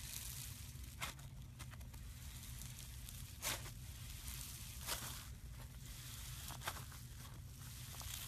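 Floam slime being squeezed and played with, its foam beads giving scattered sharp crackles and pops. The loudest come about three and a half and five seconds in.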